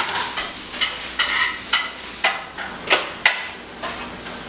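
Kitchen utensils knocking and clattering against cookware, a series of irregular sharp knocks about two a second, over a light hiss of frying.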